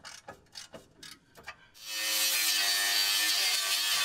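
Metal being cut off a bumper at a rusted rivet. First come short rasping strokes, about four a second. About two seconds in, a power tool starts cutting loudly and steadily with a whine.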